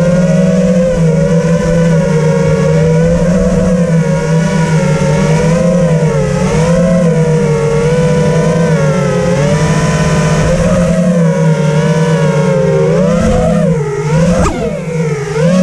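Electric motors and tri-blade propellers of a 5-inch FPV racing quadcopter (T-motor F40 Pro II motors, Dalprop T5045C props) whining in flight, recorded on board. The pitch rises and falls with the throttle, with a brief drop and sharp rise near the end.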